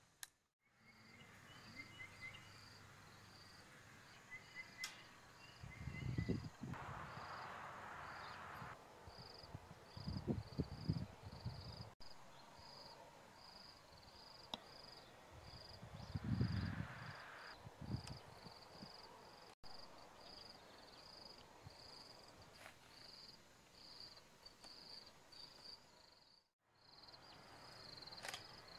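An insect chirping steadily outdoors, a regular high chirp a little over once a second, with a few short low rumbles breaking in.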